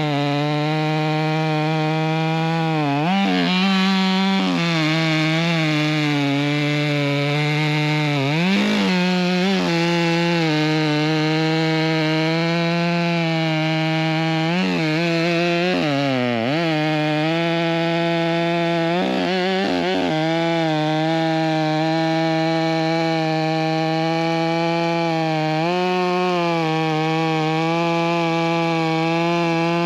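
Two-stroke chainsaw running at high speed through a cut, its pitch sagging briefly several times as the chain bites and loads the engine, then picking back up.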